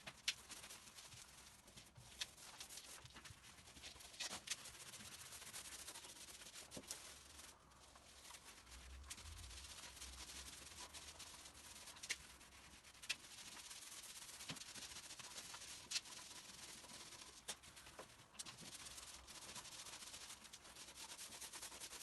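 Faint, steady rubbing of paint being spread over a plastered wall, with scattered small clicks.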